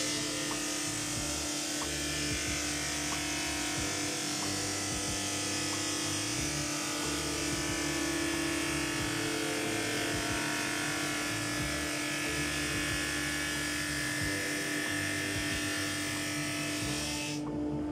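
JIB 21106 drum sander's abrasive drum sanding a 5.5 mm plywood oval down to 5 mm as the conveyor feeds it through: a steady sanding hiss over the machine's constant hum. The hiss stops abruptly near the end as the workpiece clears the drum, leaving the hum.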